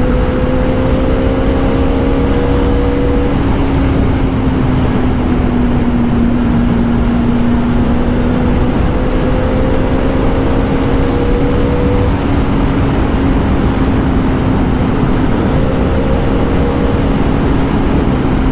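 Motorcycle engine running at a steady cruising speed of about 85 km/h, heavy wind and road noise on the rider's microphone. A steady engine hum holds under the rush, and a fainter, higher tone fades in and out a few times.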